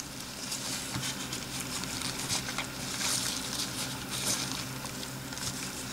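Faint sticky squishing with small scattered wet clicks: homemade slime of old Play-Doh and slime activator being squeezed and worked by hand.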